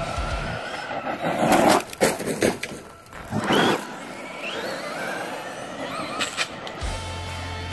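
Traxxas RC truck driving hard on gritty asphalt: its electric motor whines up in pitch as it accelerates, with loud bursts of tyre scrabble and grit about one and a half to four seconds in. Rock music with electric guitar plays at the very start and comes back near the end.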